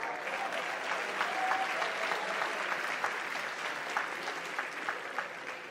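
Audience applauding, a steady patter of many claps, easing off slightly near the end.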